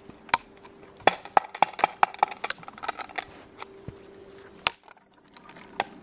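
Spruce-twig kindling crackling as the fire catches: a quick run of sharp snaps and pops, densest from about one to three and a half seconds in, with a few single cracks before and after.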